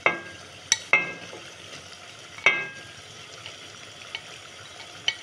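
Masala gravy simmering in a pot with a steady low sizzle, broken by several sharp metallic clinks of a utensil against the pot, each with a brief ring. The loudest clink comes about halfway through.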